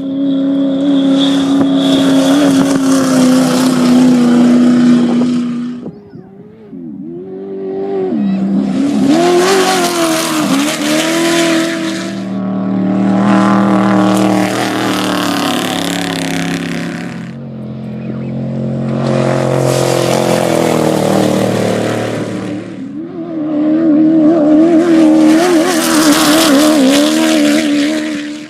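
Off-road desert race vehicles speeding past one after another, about five passes with short lulls between. Each engine runs hard, its pitch rising and falling as it revs.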